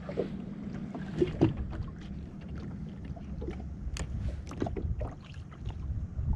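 Water lapping and slapping against the hull of a drifting jet ski, a steady low rumble with a few short knocks and splashes.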